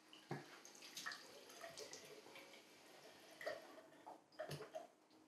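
Faint water at a bathroom sink, splashing and dripping, with a few small irregular clicks and knocks.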